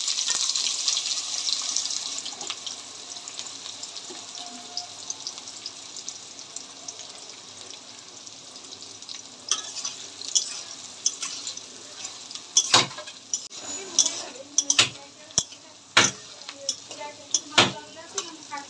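Sliced onions sizzling in hot oil in a metal kadhai, loud at the start and dying down over the first few seconds to a steady lower sizzle. From about halfway, a metal spatula stirs them, clanking and scraping against the pan in irregular strikes.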